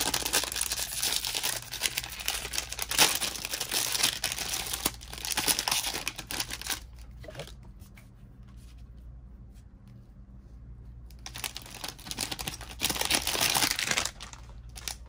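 Wrapper of a Bowman baseball card pack being torn open and crinkled: two spells of crinkling with a quieter pause of a few seconds between them.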